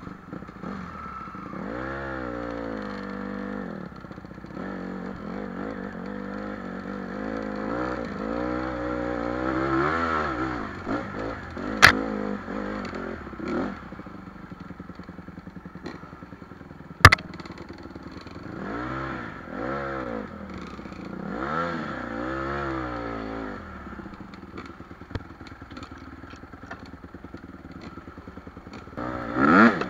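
Dirt bike engine revving up and down over and over as the rider rolls the throttle on and off along a rough trail. Two sharp knocks stand out near the middle, about five seconds apart.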